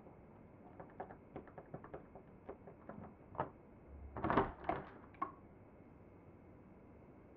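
A series of light, irregular clicks and knocks, with a louder, denser cluster of knocks about four seconds in.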